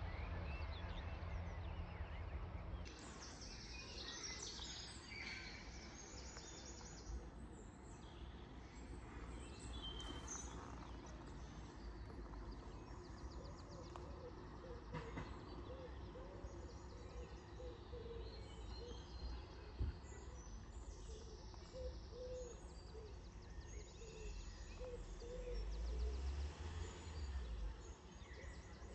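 Outdoor ambience of songbirds singing over a steady low rumble, which is louder at the start and swells again near the end. A run of short, low, repeated calls sounds through the middle.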